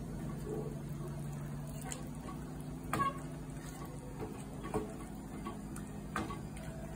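Wooden spatula knocking against a metal frying pan three times while chicken pieces are stirred in liquid, over a steady low hum.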